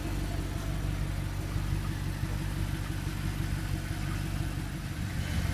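Car engine idling steadily, a low even hum with no change in pitch.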